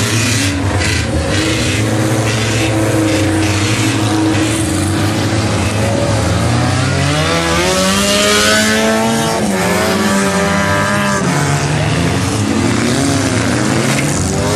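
Several demolition derby cars' engines revving hard as they drive and spin on a dirt track, the engine pitch climbing and falling again and again, busiest and loudest around the middle.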